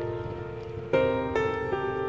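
Background music played on a keyboard: held notes, with new notes struck about a second in and again shortly after.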